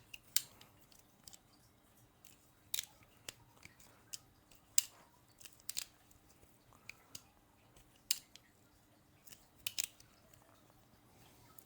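Leatherman Wave Plus multitool being opened and closed to work fresh oil into its pivots, its pliers and tools snapping into place with an irregular series of sharp metal clicks.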